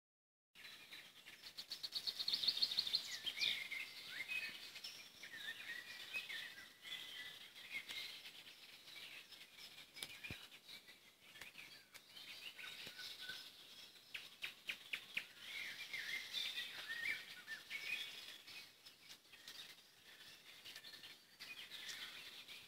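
Several songbirds singing at once in a riverside thicket, overlapping chirps and warbled phrases. There is a fast trill about two seconds in and a run of evenly repeated notes near the middle.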